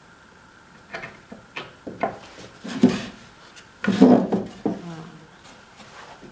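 Wooden nesting-box pieces knocking and rubbing against each other and the wooden workbench as they are handled and squeezed into line: a run of short knocks and scrapes, with two louder bumps about three and four seconds in.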